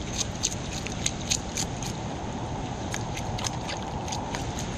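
A knife scraping and cutting along a white bass, giving irregular crackly ticks several times a second, over a steady background hiss of rain and water.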